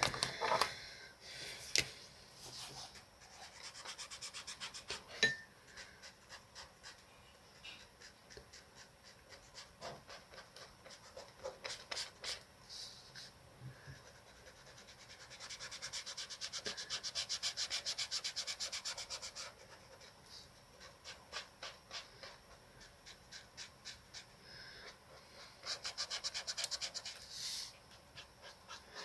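Quick back-and-forth coloring strokes scratching on paper. They come in spells, with the densest runs of rapid strokes a little past halfway and again near the end.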